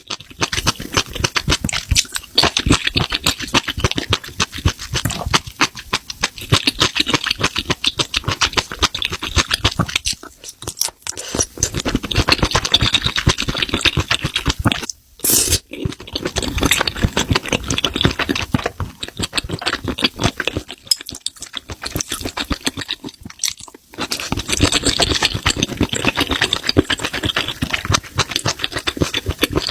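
Close-miked chewing of spicy mushrooms, a dense run of wet, crackly mouth clicks with a few brief pauses.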